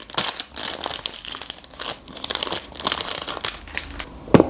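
Plastic wrapper of a Magnum ice cream bar crinkling and crackling as it is torn open and peeled off the bar, picked up close. A single thump near the end.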